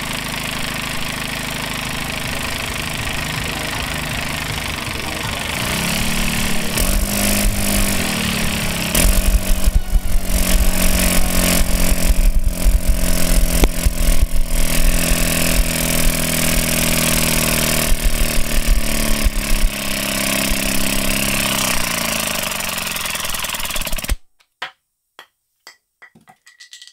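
A 3D-printed air-powered engine with a copper-pipe exhaust running on compressed air, its crankshaft bending as it is run until failure. It speeds up a few seconds in and runs louder with rapid knocking. It then slows and stops suddenly about 24 seconds in, with the crankshaft and connecting rod fused together.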